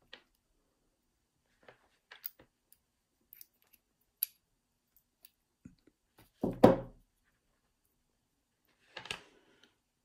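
Faint scattered clicks of a Ruko rim cylinder lock being taken apart by hand as the brass plug is slid out of its housing, with a louder clunk about six and a half seconds in and another near nine seconds.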